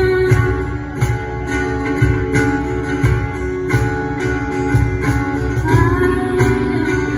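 Instrumental break of a pop song cover: guitar playing over a steady drum beat of about two beats a second, with no singing.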